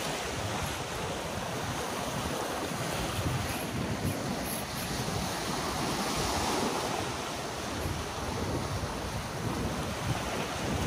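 Ocean surf washing and breaking against the rocks of a jetty, steady throughout, with wind buffeting the microphone.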